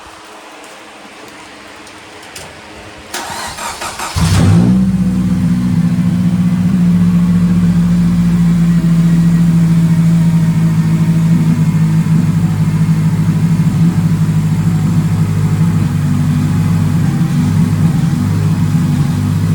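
Freshly rebuilt Honda K20A2 four-cylinder engine of an Acura RSX Type S race car being started: the starter cranks briefly about three seconds in, the engine catches on the first try about a second later, then runs steadily.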